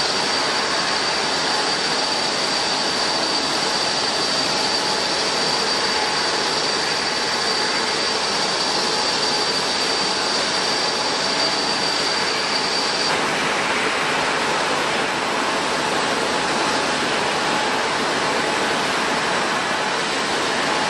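Airliner jet engines running steadily: a broad rush of noise with a high steady whine that cuts off suddenly about two-thirds of the way through.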